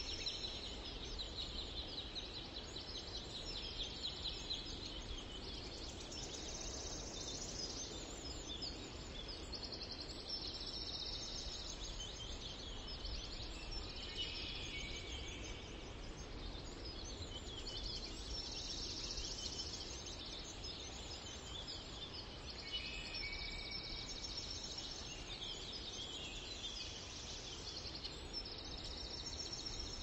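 Steady background noise with a low hum, over which faint high-pitched chirping comes and goes in patches of a few seconds.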